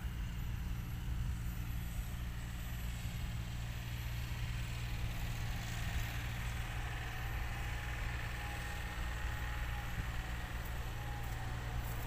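Steady low droning hum of a running engine or machine, which cuts off suddenly at the very end.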